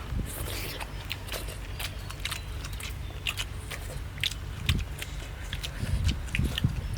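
Someone biting and chewing food: many short, crunchy clicks over a low rumble.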